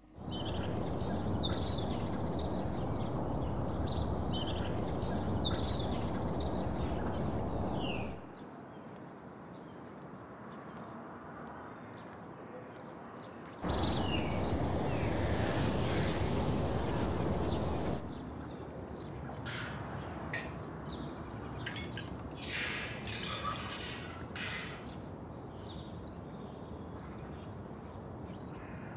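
Outdoor ambience: a steady wash of open-air noise with small birds chirping. The noise drops quieter about eight seconds in and swells louder from about fourteen to eighteen seconds. After that comes a run of short, sharper bird calls.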